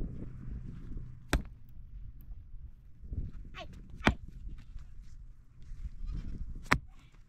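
A sheep or goat bleats once about three and a half seconds in, a wavering call that falls in pitch. Three sharp knocks, about two and a half seconds apart, are louder than the bleat.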